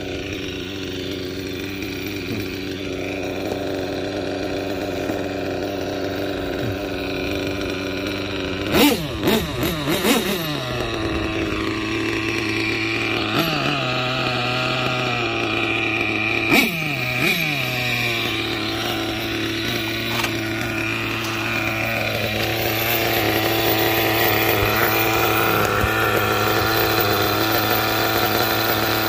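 Small nitro glow engine of a 1/8-scale Kyosho Inferno GT RC car running at a steady buzzing idle. It briefly rises and falls in pitch three times, about nine, ten and seventeen seconds in, and runs a little faster and louder later on.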